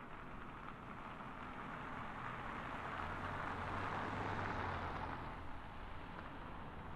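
A car driving past close by, its tyre and engine noise building to a peak about four seconds in and then fading away.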